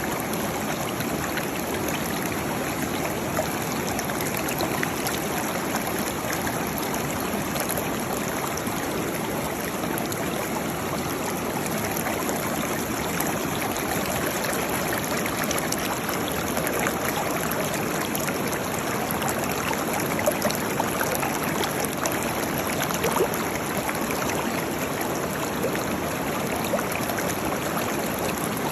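Waterfall: a steady rush of falling water with small splashes here and there.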